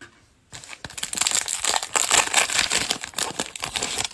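A 2021 Panini Playoff football card pack's wrapper being torn open and crinkled: a dense crackling that starts about half a second in and goes on for about three seconds.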